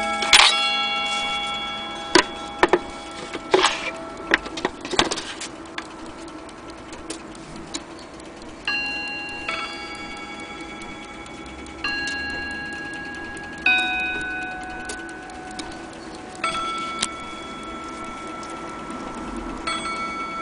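Elliott mantle clock chiming on its rods, single notes struck one after another about every one to three seconds, each ringing on and fading. Several sharp clicks come in the first five seconds, before the notes begin.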